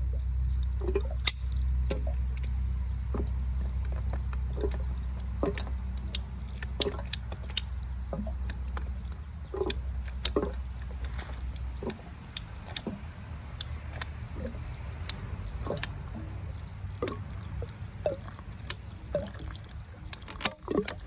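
Ratcheting PVC pipe cutter clicking over and over as it squeezes through a PVC water pipe, the clicks sharp and irregular, about one every half second to a second. A low rumble underneath drops away about halfway through.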